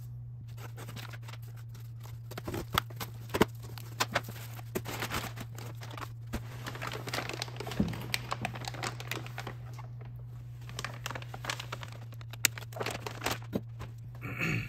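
Packaging being opened by hand: packing material crinkling and tearing in irregular bursts, with sharp clicks and knocks, over a steady low hum.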